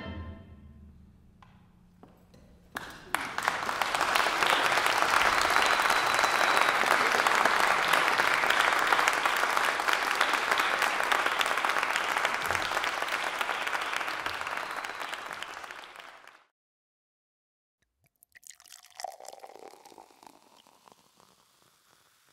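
The ensemble's last note dies away. A few seconds in, audience applause starts and holds steady, then cuts off abruptly.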